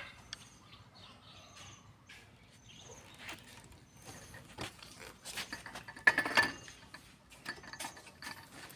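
Scattered light knocks and clicks of timber and hand tools being handled, with the loudest cluster of knocks about six seconds in. Faint short high chirps recur in the background.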